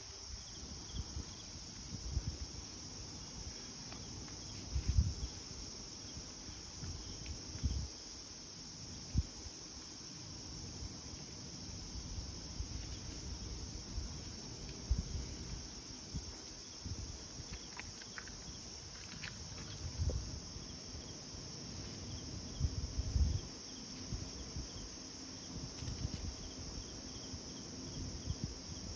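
Insects chirring steadily in a high-pitched chorus, with scattered low thumps.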